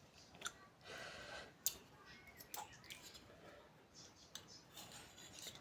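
Faint, scattered clicks and light taps of eating utensils against a bowl while eating noodles, with a brief rustling noise about a second in.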